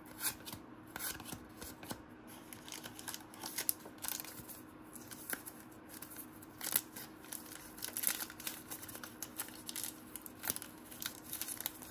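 A stack of basketball trading cards being handled and sorted by hand: soft, irregular clicks and rustles of card stock sliding and tapping against card stock.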